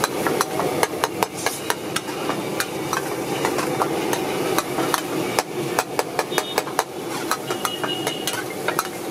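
A long-handled steel ladle clinking and scraping against a metal kadai as a thick curry masala is stirred, in many quick, irregular knocks.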